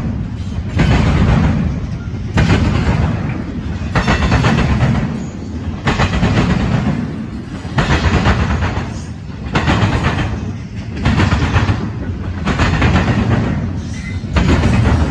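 Double-stack intermodal freight train passing at speed over a railroad diamond crossing. The wheels clatter and bang across the crossing in a regular burst about every one and a half to two seconds, over a steady low rumble of the passing cars.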